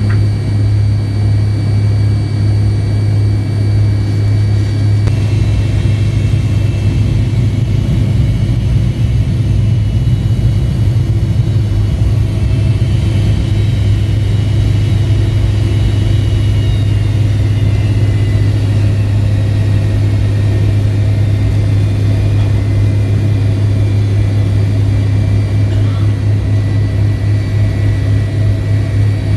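Steady jet-engine drone inside the cabin of a McDonnell Douglas MD-88 taxiing, heard from a rear seat close to its tail-mounted Pratt & Whitney JT8D engines. The drone is a constant low hum, with thin whining tones above it that change about five seconds in and then slowly drift.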